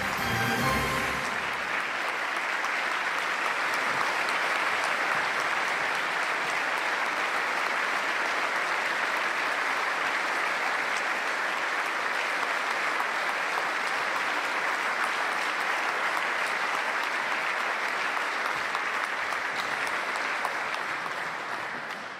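Large audience applauding steadily, after a short snatch of music that ends about a second in; the applause dies away near the end.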